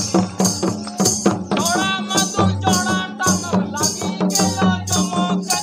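Santali folk dance music played live: slung barrel drums (tumdak') beaten in a steady rhythm, with a bright stroke about three times a second. From about a second and a half in, voices sing a wavering melody over the drums.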